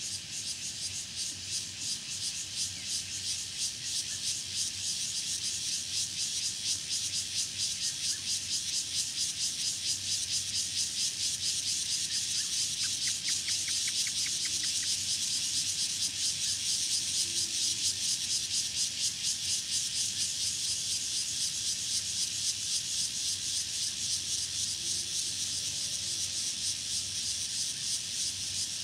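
Evening chorus of cicadas and other insects: a steady, high-pitched, rapidly pulsing buzz, with a short run of fainter chirps about halfway through.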